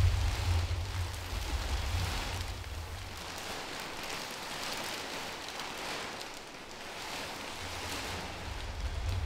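Crinkling, crackling rustle of black plastic sheeting shifted by a body moving inside it, swelling and fading every second or two, over a low rumble that fades after the first couple of seconds and comes back near the end.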